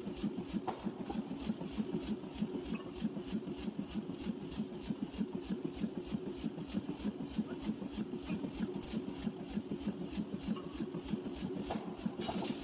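Power forging hammer running in a steady, even rhythm of about four knocks a second while a red-hot steel ring is worked on its anvil.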